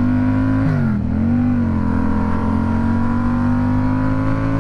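Yamaha MT-07 parallel-twin engine pulling under way. Its pitch dips and recovers about a second in as a gear changes, then climbs slowly, and drops again at the end with the next upshift. Wind rumble runs underneath.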